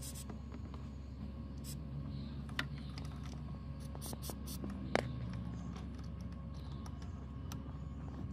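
Light plastic clicks and rattles of a wiring connector being handled at a car's accelerator pedal sensor, with a few very short hisses of an aerosol spray, over a steady low hum.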